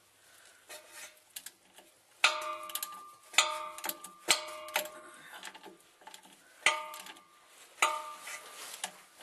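Socket wrench and extension working the transmission-mount bolts, with irregular sharp metallic clinks and clanks that ring briefly, as steel strikes steel on the truck's frame and crossmember.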